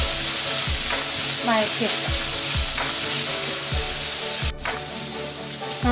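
Chopped onion, garlic, ginger and green chillies sizzling in hot oil in a kadai while a wooden spatula stirs and scrapes them, knocking against the pan about once a second. The mixture has sautéed well and softened. The sound drops out for an instant about four and a half seconds in.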